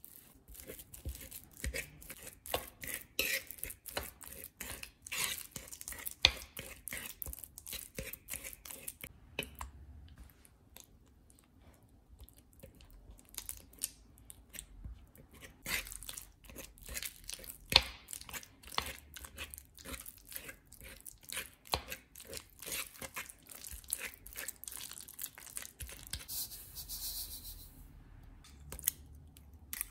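Metal fork mashing banana and soft butter in a wooden bowl: irregular taps and scrapes of the tines on the wood, with soft squishing. Near the end there is a brief hiss of sugar poured into the bowl.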